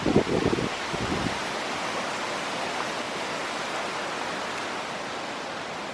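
Wind buffeting the microphone in gusts for the first second or so, settling into a steady, even rush of wind noise.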